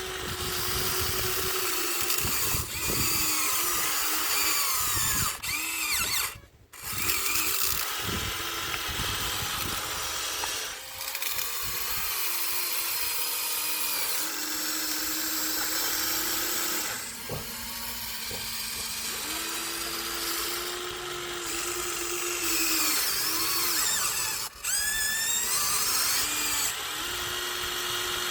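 Huina 1593 RC excavator's electric motors and gears whining as it works its boom, arm, bucket and turntable, the pitch rising and falling as each movement starts and stops. The sound cuts out briefly twice, at about six and a half seconds and again near twenty-four seconds.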